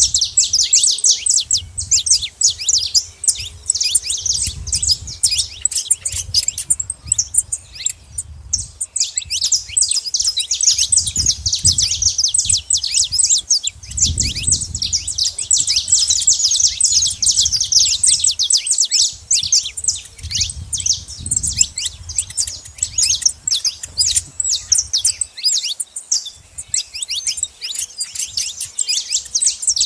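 A flock of saffron finches chirping together in a dense, continuous chatter of rapid high calls, thinning briefly about seven seconds in.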